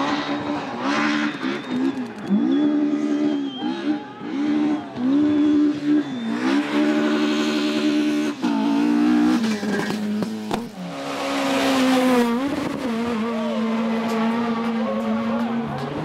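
Rally car engine revving hard, its pitch climbing and dropping again and again as it shifts gear and lifts off, with bursts of tyre noise.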